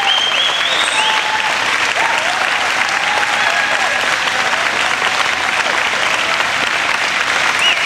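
Audience applauding steadily, with high cheering calls at the start and again near the end.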